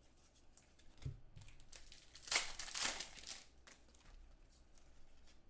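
Trading-card pack wrapper being torn open and crinkled while the cards are handled. There is a soft thump about a second in, and the loudest tearing comes a little before the middle.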